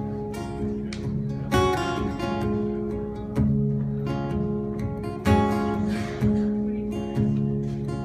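Acoustic guitar strumming chords in an instrumental passage, a new strum about every second or two.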